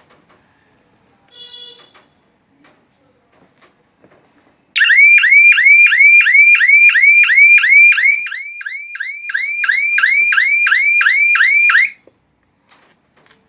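Intrusion alarm panel's electronic siren sounding: a loud, rapidly repeating rising whoop, about three sweeps a second, that runs for about seven seconds and then cuts off suddenly. It is preceded by a single short electronic beep.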